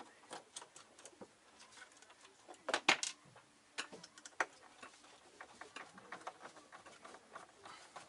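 Irregular light clicks, taps and rustles from hands handling electrical wiring and small plastic fittings, with a quick louder cluster about three seconds in.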